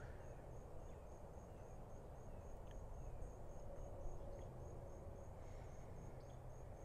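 Quiet outdoor ambience: an insect chirping in a steady high-pitched pulse, about four chirps a second, over a low rumble, with a few faint ticks.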